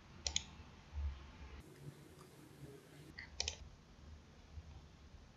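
Two faint computer mouse clicks about three seconds apart, each a quick pair of ticks, over a low hum.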